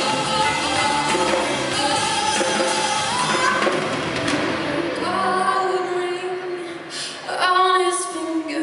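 A female singer performs live with band accompaniment. A little past halfway the bass and band fall away, leaving the voice nearly alone.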